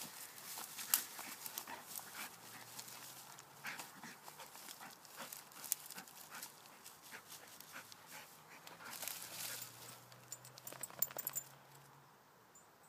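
Pet dog growling low and drawn-out over many small scratching clicks. The sounds stop about a second before the end.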